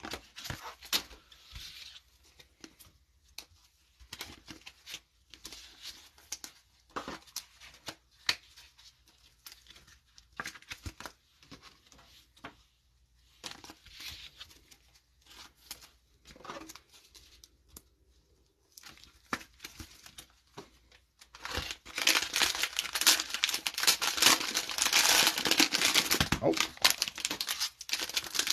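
Trading cards and thin plastic sleeves being handled, with soft scattered rustles and clicks. About 21 seconds in, a plastic-wrapped trading-card cello pack is torn open with loud continuous crinkling and tearing.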